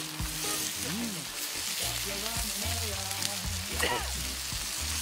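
Food sizzling on a hot cooking plate: a steady frying hiss.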